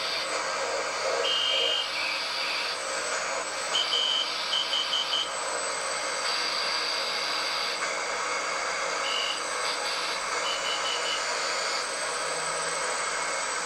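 Morse code (CW) on shortwave, heard through a small radio's speaker: high-pitched beeps in dashes and dots over a steady hiss of static. The clearest group comes about four seconds in, one longer tone followed by four quick dots, and fainter dots follow about nine to eleven seconds in.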